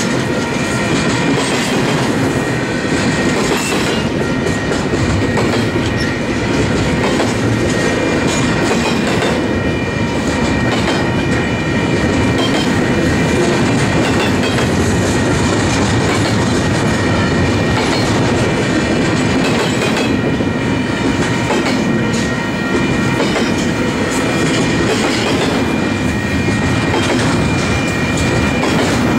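Loaded double-stack intermodal container cars rolling past at speed: a steady rumble of steel wheels on rail with clacking over rail joints and a thin, steady high whine above it.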